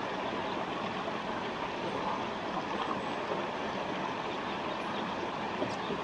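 Steady rushing of a forest stream, with a couple of faint high bird chirps near the end.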